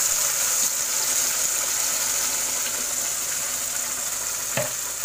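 Ground onion-tomato gravy sizzling loudly as it hits hot oil and spices in a kadhai: a steady hiss. There is a single knock about four and a half seconds in.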